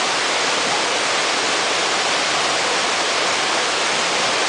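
Small waterfall tumbling over boulders into a shallow pool: a steady, even rush of falling water.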